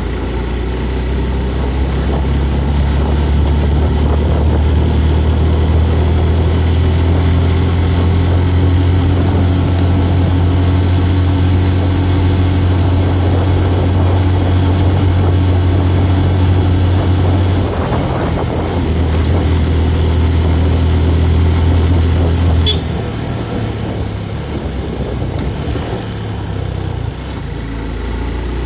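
Motorcycle engine running steadily under way, a low drone that eases briefly a little past halfway and then drops to a quieter, lower running about three-quarters through.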